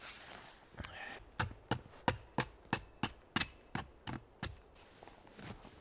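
A hand tool striking wood in a steady series of about a dozen sharp blows, roughly three a second, with one last blow near the end.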